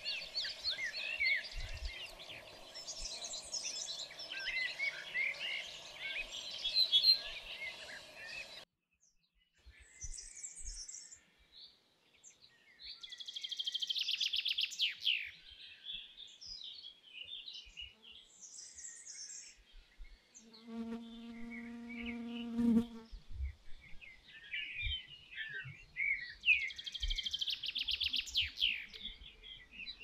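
Domestic canary singing: dense high twittering at first, then after an abrupt break, separate phrases of chirps and fast, buzzy rolling trills. A low steady hum lasts about two seconds a little past the middle.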